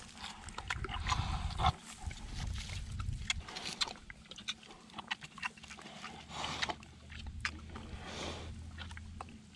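Two pigs drinking side by side from a pan of water, slurping and smacking with irregular wet clicks and splashes.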